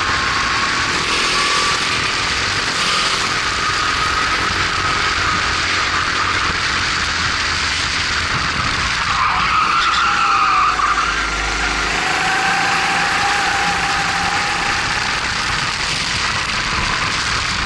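Formula 270 racing kart's Honda GX270 four-stroke engine running hard on track, under a heavy rush of wind on the onboard microphone. The engine note climbs, drops about nine seconds in as the kart slows for a corner, then climbs again as it accelerates away.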